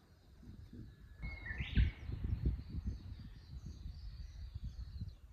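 Birds calling outdoors: a short whistle and then a quick rising call about a second and a half in, with faint high chirps after it, over an uneven low rumble of wind on the microphone.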